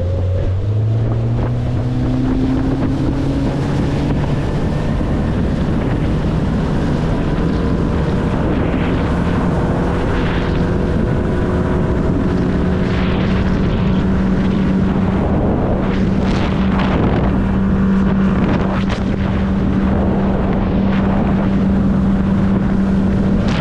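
Honda outboard motor driving a bass boat at speed: its engine note climbs over the first few seconds as it accelerates, then holds steady. The hull knocks through choppy water and wind buffets the microphone.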